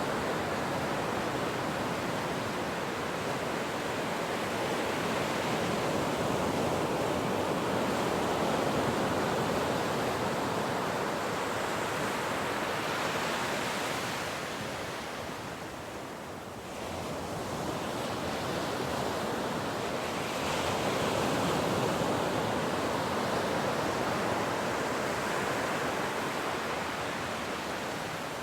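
Ocean waves breaking and washing on a shore, a continuous surf that ebbs about halfway through and then swells again.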